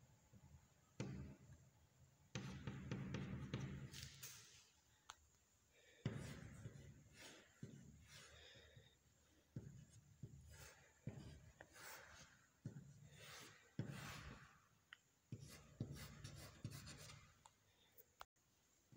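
Faint chalk strokes on a chalkboard: a run of separate scraping strokes, about one every half second to a second, with a longer drawn-out stroke a few seconds in.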